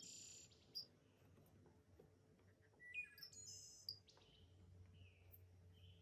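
Faint birdsong: scattered short high chirps and trills, with a cluster of them about three seconds in.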